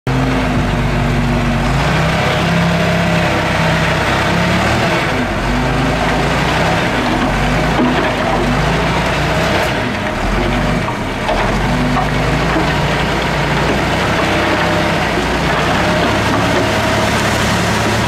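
Heavy diesel earthmoving machinery running under load, its engine pitch shifting every second or two with a steady noisy clatter over it.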